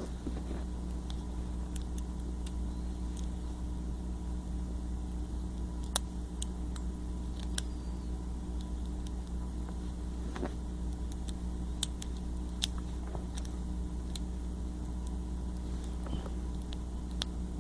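Scattered light clicks and taps of the small plastic parts of an opened Hexbug remote controller being handled, over a steady low hum.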